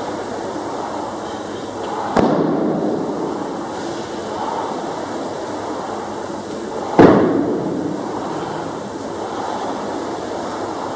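Two sharp bangs echoing in a large room, one about two seconds in and a louder one about five seconds later, over a steady rumbling background.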